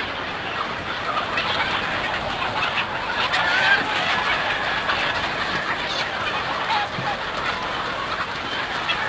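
A large flock of desi chickens clucking and calling over one another in a steady, dense din.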